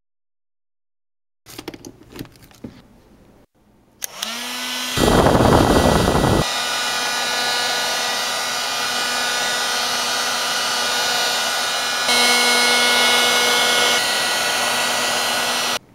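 Electric heat gun switched on with a click, its motor spinning up in pitch to a steady whine over the rush of hot air. A few knocks of handling come before it starts, the air rush is loudest for a second or so just after start-up, and the gun cuts off suddenly near the end.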